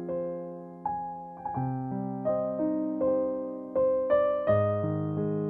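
Background music: slow piano chords and melody notes, each struck and left to ring and fade.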